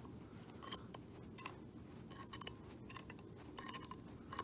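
Bearing puller being turned by hand to draw the old motor bearing off a Hoover Elite armature shaft: an irregular run of small metallic clicks and ticks, several a second.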